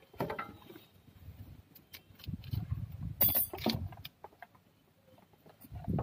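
Hands working a car's wiring harness and tools under the dashboard: scattered clicks and rustling, with a brief sharp metallic clatter about three seconds in.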